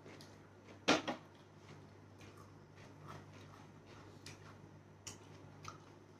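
Two people eating with their hands from plates: scattered small clicks and taps of fingers, food and plates, with one sharp knock about a second in. A faint steady low hum lies underneath.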